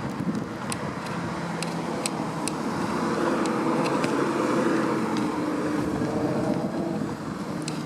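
A motor vehicle passing, its engine and road noise growing louder through the middle and then easing off, with a few light clicks.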